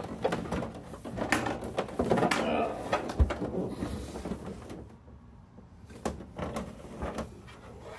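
Rummaging through cables and small objects: a run of clicks, knocks and rustling, quieter for about a second past the middle.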